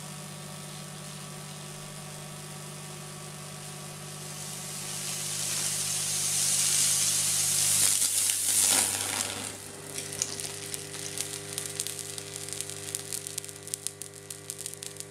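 High-voltage test transformer humming steadily while current tracks through a green tree branch laid across its two porcelain bushings: a sizzling hiss swells over several seconds and peaks about eight seconds in as the branch smokes, then gives way to sharp crackling as the branch burns.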